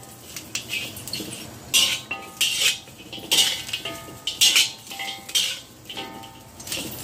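Metal spatula scraping and clanking against a wok as goose feet are stirred and turned in the dry, oil-free pan: repeated strokes about every second, several of them leaving the wok ringing.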